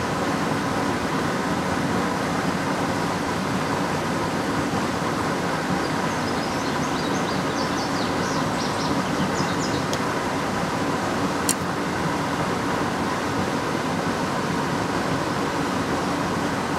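Steady rush of water pouring through a spillway, even and unbroken, with a few faint high chirps in the middle and a single sharp click about eleven seconds in.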